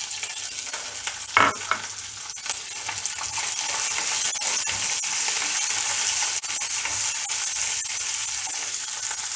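Whole green chillies sizzling in hot oil with a tempering of mustard seeds and lentils, a steady frying hiss dotted with crackling clicks, while a spatula stirs them in a nonstick pan.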